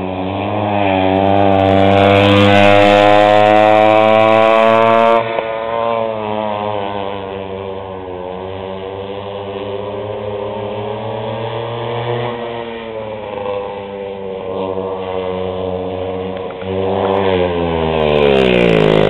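Early-1960s McCulloch 100cc two-stroke chainsaw engine driving a go-kart at high revs. It rises in pitch and grows louder over the first few seconds, drops back abruptly about five seconds in to a lower, steadier run, then grows louder again near the end as its pitch falls steeply.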